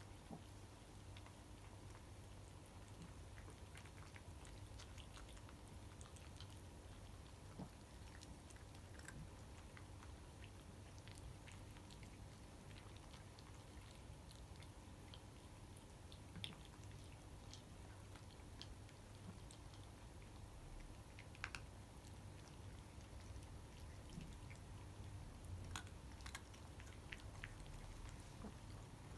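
Faint crunching of cats chewing dry kibble: scattered small clicks over a low steady hum.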